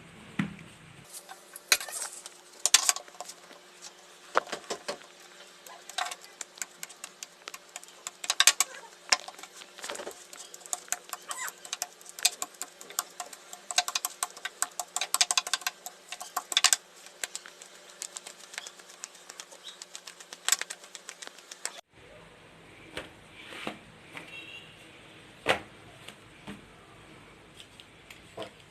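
Dough being rolled out on a marble counter: irregular sharp clicks and knocks of the rolling pin and hands against the stone, coming in quick clusters.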